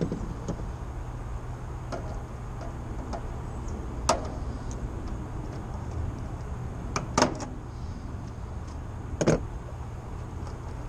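Sharp clicks and knocks of tools and hardware being handled in a heat pump outdoor unit's open electrical compartment: one about four seconds in, a quick pair about seven seconds in and another near nine seconds, over a steady low rumble.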